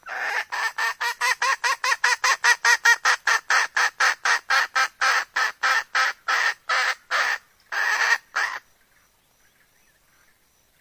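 Red junglefowl hen cackling: a rapid series of loud, short clucks, about four a second, spacing out later and ending in two longer notes about eight and a half seconds in. It is the cackle of a hen in breeding condition, the call used to draw wild males.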